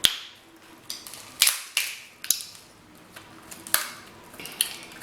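King crab leg shells cracking and snapping as they are broken open for eating: about seven short sharp cracks at irregular intervals, the loudest just before four seconds in.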